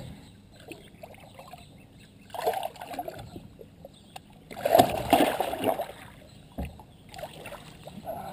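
Water splashing as a large wels catfish thrashes at the surface beside a boat and is hauled out by hand. It comes in two bouts, a short one between two and three seconds in and the biggest, loudest splash about five seconds in.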